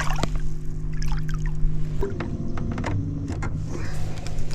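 Electric trolling motor humming steadily as it moves the jon boat, its tone shifting about two seconds in, with scattered clicks and knocks of gear being handled in the boat.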